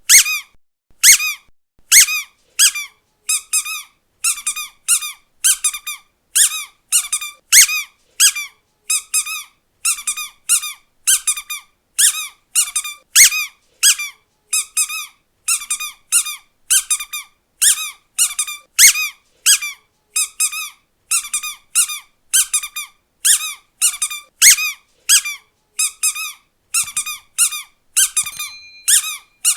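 Squeaky dog toy ball squeezed over and over: a stream of short, high-pitched squeaks, some single and some in quick runs of two or three, about two a second.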